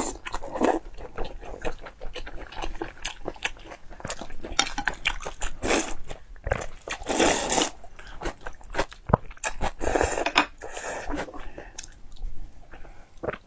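Close-miked eating: chewing and crunching of food, with many short mouth clicks and smacks, and a few longer noisy stretches that fit slurping from a bowl.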